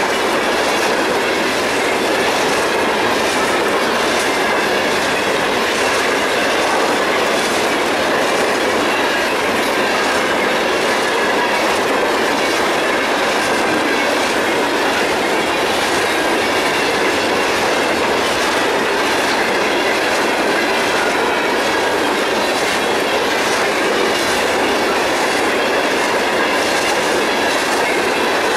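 Covered hopper cars of a Norfolk Southern grain train rolling past close by, their steel wheels clicking in a steady repeating rhythm over the rail joints.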